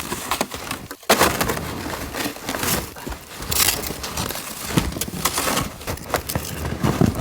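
Snow shovel cutting into and scraping through deep, heavy snow on a roof, a continuous run of crunching, scraping strokes with a short break about a second in.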